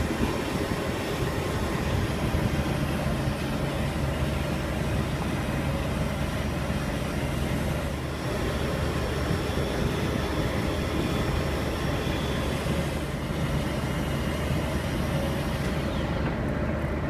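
Fishing boat's engine running steadily, a low drone under a haze of wind and water noise; the higher hiss falls away near the end.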